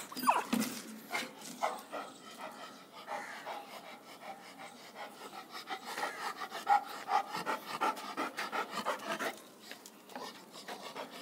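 A dog panting: a long run of short, quick breaths, several to a second.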